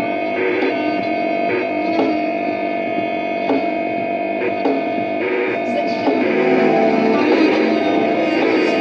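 Experimental music: an amplified string instrument, the Violik de TchalaZak, played through effects over electronics. Struck or plucked notes come every second or so over sustained drones, and the sound grows fuller and a little louder about six seconds in.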